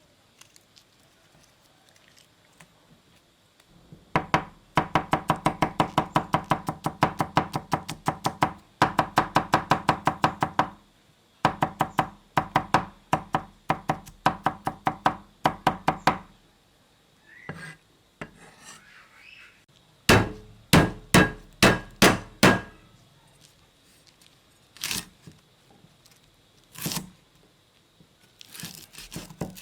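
Knife chopping on a wooden cutting board: fast runs of about five chops a second, broken by two short pauses, then six slower chops and a few single ones near the end.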